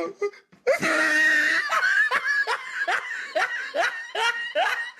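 A person laughing hard: a breathy burst about a second in, then a run of quick laughs, each falling in pitch, about two or three a second.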